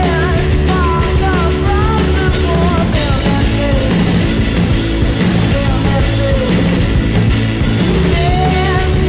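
Loud rock music with drums and guitar, a sliding melody line over it.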